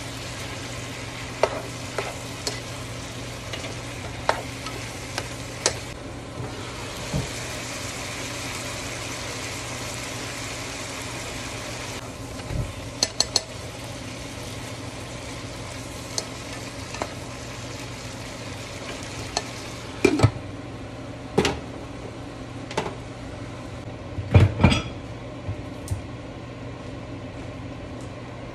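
Sliced beef, cabbage and zucchini sizzling in a nonstick pan as a plastic slotted spatula stirs them, with scattered scrapes and taps against the pan and a few louder knocks near the end.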